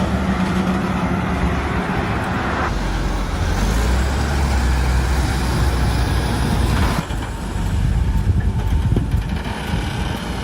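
Heavy diesel vehicle engines running with a dense low rumble. The sound changes abruptly about three seconds in and again about seven seconds in.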